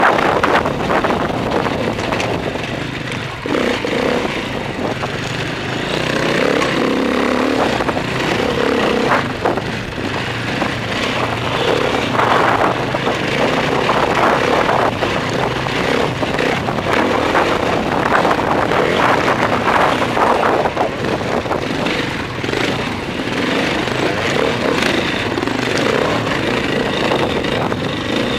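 Enduro motorcycle engine under way off-road, its revs rising and falling over and over as the rider works the throttle and gears on a dirt track.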